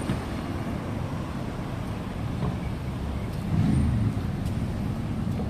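Heavy road traffic in a jam: a steady low rumble of many vehicle engines idling and crawling, with a swell of louder engine noise about three and a half seconds in.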